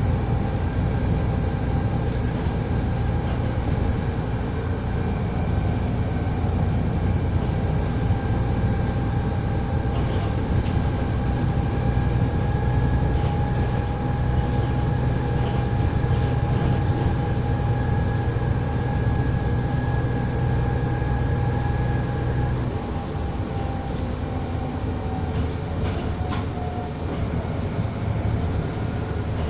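Volvo ALX400 double-decker bus heard on board while driving: the engine drone with a steady high whine over it. About two-thirds of the way through, the whine fades and the engine note quietens, as when the bus eases off.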